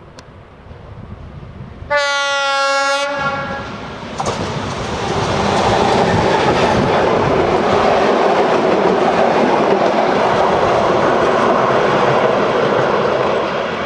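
DE 520 diesel-electric locomotive sounding its horn once, for about a second. The locomotive and its coaches then pass close with a loud, steady rush of engine and wheels on the rails.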